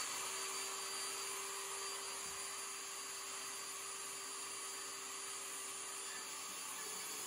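Portable job-site table saw running steadily, a hiss with a steady hum, as a sheet of foam board is fed across its blade.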